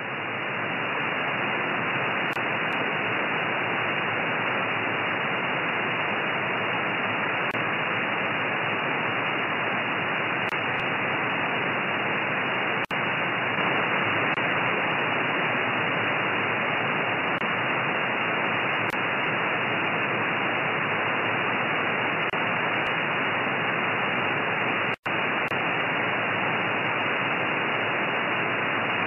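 Steady hiss of receiver and band noise from an RTL-SDR with a microwave downconverter in upper-sideband mode, tuned to a 2320 MHz channel with no station transmitting. The hiss cuts out briefly twice, about 13 and 25 seconds in, and is slightly louder after the first break, when the RF gain is raised.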